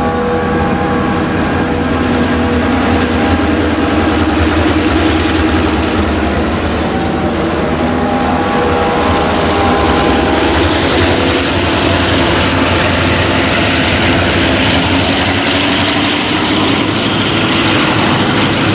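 Diesel-electric freight locomotives G532, S303 and B74 passing close by with their engines running, a loud steady mix of engine tones that drift slowly in pitch over rolling wheel noise. Near the end the covered hopper wagons behind them roll past.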